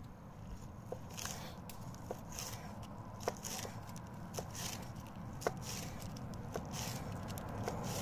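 Chef's knife slicing through crisp lettuce leaves on a wooden cutting board: a crunchy cut and a knock of the blade on the board, about two a second, starting about a second in.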